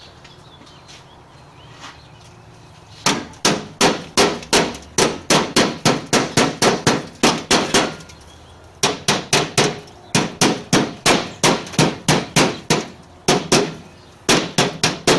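Hammer tapping a sheet-metal patch, an old license plate, to shape it into the battery tray area. Three quick runs of sharp metallic strikes, about three to four a second, begin a few seconds in and are separated by short pauses.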